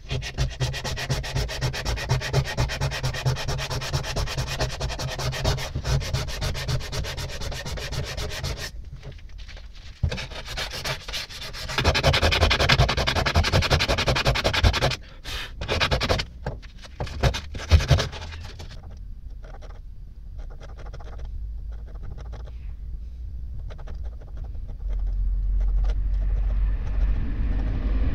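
Sandpaper rubbed by hand along the rusty steel depth rod of a vernier caliper. First come quick, even back-and-forth strokes, then uneven louder bursts of rubbing. A steady low hum comes in near the end.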